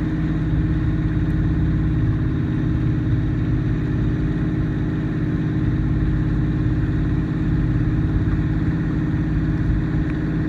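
Engine of a bamboo-outrigger boat (bangka) running steadily under way, a constant low drone with no change in speed.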